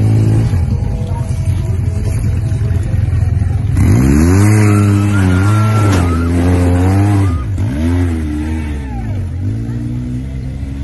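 Side-by-side UTV engine revving hard as it climbs a muddy hill, wheels spinning. The revs jump about four seconds in, then drop and pick up again twice before settling.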